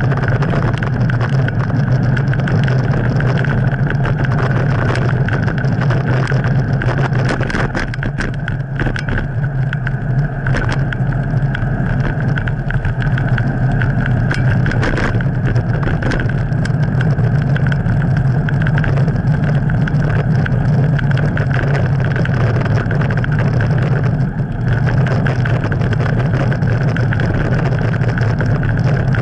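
Steady, loud rumble of wind and road vibration picked up by a camera mounted on a moving bicycle's handlebars, with scattered clicks and rattles from about seven to sixteen seconds in.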